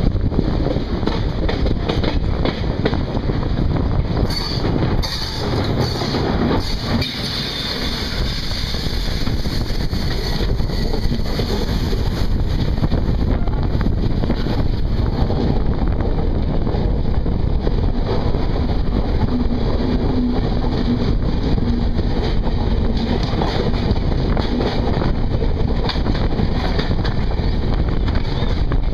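Heavy wind buffeting on the microphone over the running noise of a moving passenger train, heard from its open door. From about four seconds in, a brighter hiss comes as another train's coaches run close alongside.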